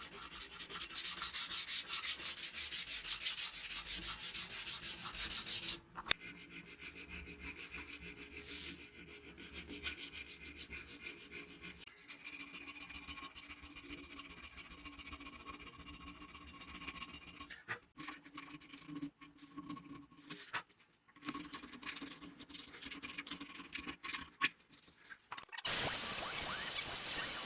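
Rapid back-and-forth abrasive rubbing on a hatchet, loud and fast for the first six seconds, then lighter and more uneven. A steady hiss starts near the end.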